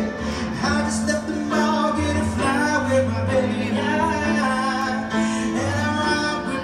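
Live piano-bar music: a singer at the keyboard performing with piano accompaniment.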